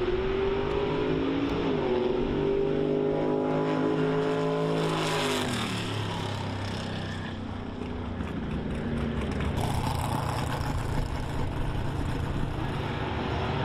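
Drag racing car engine at full throttle, its pitch climbing steadily with a brief dip about a second and a half in, then falling sharply about five seconds in. A lower, steadier engine sound carries on after.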